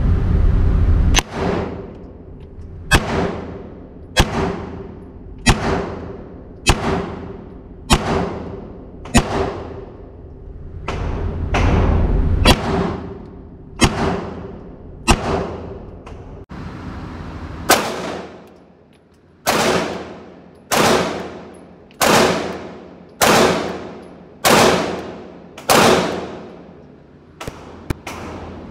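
Walther PPQ Q5 Match pistol fired in slow, evenly paced single shots, about one every 1.2 seconds, around twenty in all. Each sharp report rings off in the echo of an indoor range.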